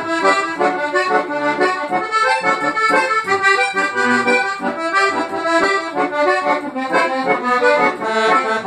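Accordion playing the instrumental introduction of a gaúcho regional song, a run of quick melodic notes over a steady rhythm.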